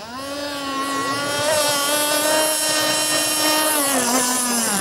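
Radio-control speed boat's two-stroke engine running at high revs. Its pitch climbs sharply at the start, holds a steady high note, sags briefly about four seconds in and begins to drop near the end.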